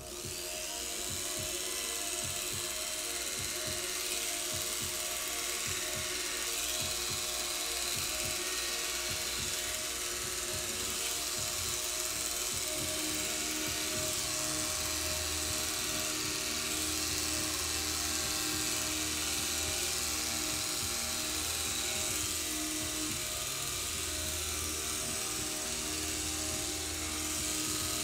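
Electric hair clippers switching on and then buzzing steadily as they shave a cat's fur.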